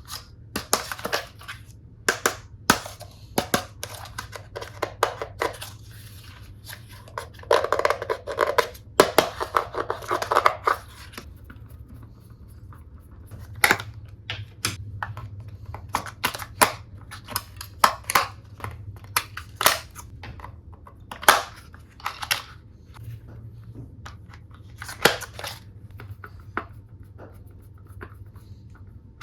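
Plastic toy tool pieces and their packaging being handled: scattered sharp clicks and taps, with a dense stretch of crinkling and crackling about a third of the way in.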